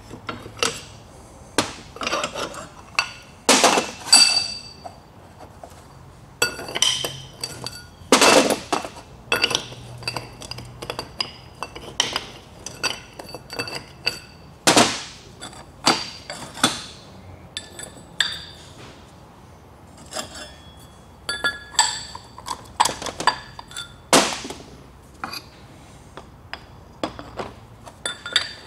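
Heavy steel bearing-puller cups, collars and adapters clinking and clanking against each other and a steel workbench, in many separate sharp knocks, each with a brief metallic ring, as the puller is fitted over a differential pinion gear to pull its bearing.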